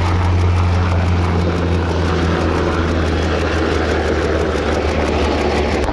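S-70C Seagull helicopter in flight, its rotor and twin turboshaft engines making a steady low drone over a rushing noise.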